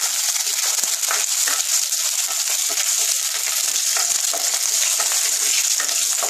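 Mustard seeds, curry leaves and green chillies sizzling steadily in hot oil in a nonstick wok, with small crackles, as a wooden spatula stirs them.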